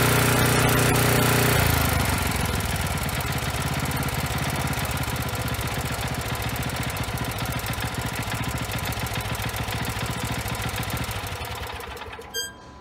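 Robin 6 hp single-cylinder engine on an ST41 walk-behind tiller, running fast and then throttled back to a steady idle about two seconds in. Near the end it is shut off and dies away, followed by a single short metallic ring.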